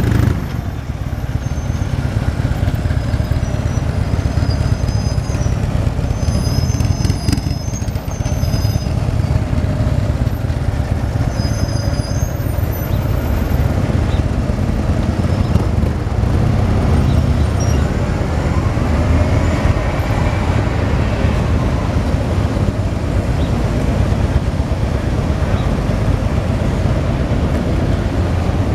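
Slow-moving street traffic of parade vehicles, trucks and cars, giving a steady low engine and road rumble, with a few brief high squeals between about 6 and 12 seconds in.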